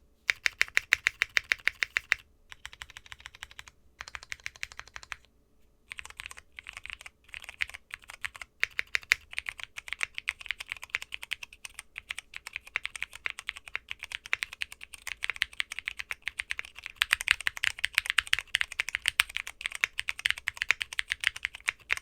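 Typing on a Neo65 mechanical keyboard with Cherry MX Purple tactile switches and XDA profile keycaps: rapid key clacks, broken by a few brief pauses in the first six seconds, then steady fast typing.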